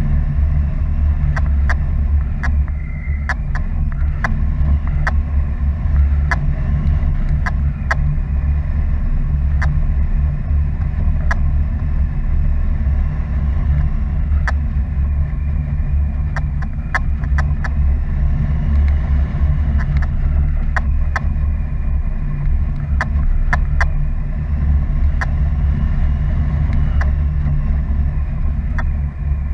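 Airflow rushing over a camera microphone during paraglider flight: a loud, steady wind rumble, with scattered sharp clicks throughout.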